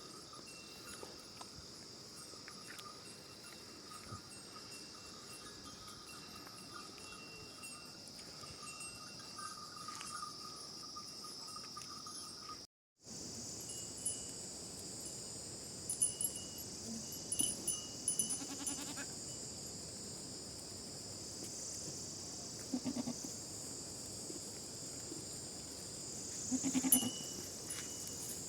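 Goats bleating now and then, a few short calls with the loudest near the end, over a steady high insect buzz.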